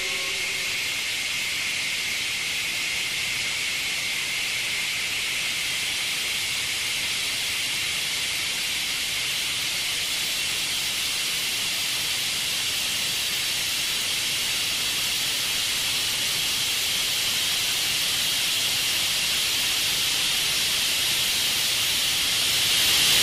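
A steady, high hiss of noise in a dark ambient track, slowly growing louder and swelling just before the end. A low held drone fades out in the first second.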